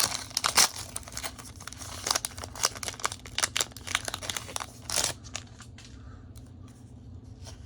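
A foil Pokémon booster pack wrapper being crinkled and torn open: dense crackling for about five seconds, ending in one louder crackle, then a few scattered soft rustles.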